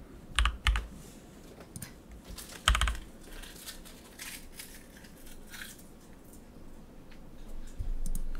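Scattered keystrokes on a computer keyboard: a quick pair of clicks about half a second in, a cluster of clicks near three seconds, and fainter taps between.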